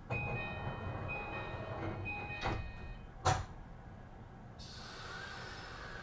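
E235-1000 series Green Car at a station stop: the door-closing chime repeats its tones, then the sliding doors shut with two knocks a little under a second apart, the second louder. About a second later a hiss starts and a whine glides down in pitch as the train sets off.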